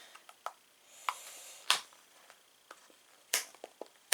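Handling of a door knob's retail packaging: scattered sharp clicks and taps, with a brief rustle about a second in.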